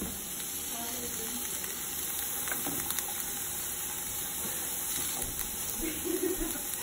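Diced celery, carrot and red onion sizzling steadily in hot olive oil in a ceramic frying pan, stirred with a wooden spatula.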